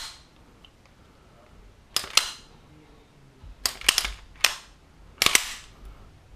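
Sharp metallic clacks of a semi-automatic pistol's steel action being worked by hand: the slide snapping and parts clicking, in about five groups, some doubled, each with a short ringing tail. A function check of the pistol after cleaning and reassembly.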